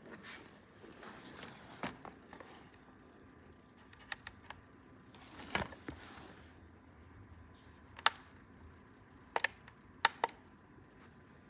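Scattered sharp clicks and light taps of small objects being handled, several coming in quick pairs, with a brief rustle about halfway through.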